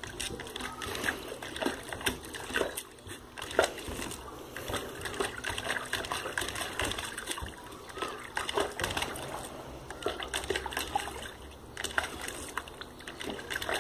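A dog pawing and digging at the water in a plastic tub, making irregular splashes and sloshing as its paw and muzzle go in and out of the water.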